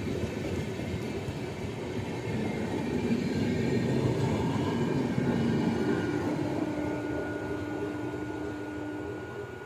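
Indian Railways LHB passenger train running past at speed: a steady rush of wheels and coaches, with the end luggage-brake-and-generator car going by about four seconds in. The noise eases off slowly as the train draws away, and a steady hum rises through it from about six seconds in.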